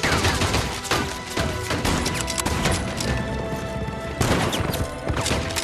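Film battle soundtrack: a fusillade of gunshots with crashing and smashing impacts, a sharp loud hit about four seconds in, over the film's orchestral score.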